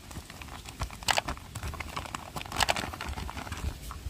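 Thin clear plastic packaging bag crinkling and rustling in short bursts of crackles as a plastic toy dump truck is pulled out of it.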